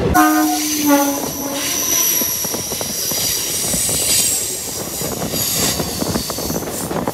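A train horn sounds two short hoots in the first second. Then comes the steady rush and clatter of a suburban electric multiple-unit train passing close alongside on the next track, with a thin high wheel squeal over it, heard from the doorway of a moving train.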